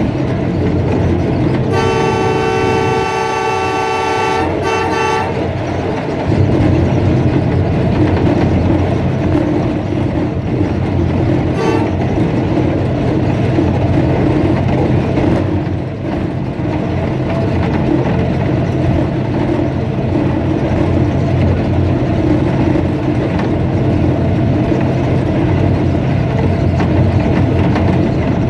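ZCU-30 diesel-electric locomotive's air horn sounds one long blast of about three seconds followed by a short blast, over the steady running of its diesel engine and wheels on the rails.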